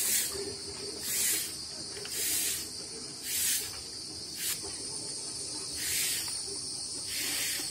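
Insect chorus, likely cicadas or crickets: a steady high-pitched buzz, swelling into louder hissy pulses about once a second.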